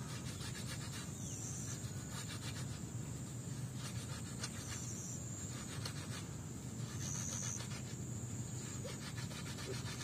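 Hand-washing dishes: a scouring pad rubbed over stainless-steel bowls in soapy water, in several short runs of quick scrubbing strokes.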